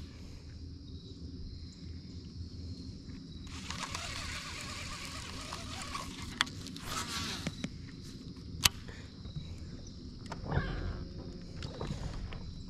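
Cast with a baitcasting rod and reel: line hisses off the spinning spool for two or three seconds, followed by a couple of sharp clicks of reel handling and small knocks of gear in the boat, over a faint steady hum.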